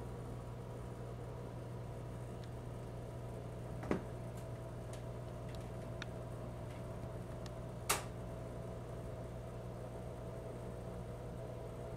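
Steady electrical hum of running aquarium equipment, such as a filter, heard in a quiet room, with two light clicks about four seconds apart and a few fainter ticks.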